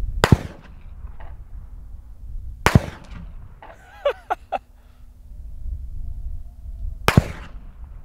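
.45-70 rifle bullets fired from about 200 m passing overhead: three sharp supersonic cracks, about two and a half and then four and a half seconds apart, each trailing off quickly. A man gives a short vocal exclamation between the second and third.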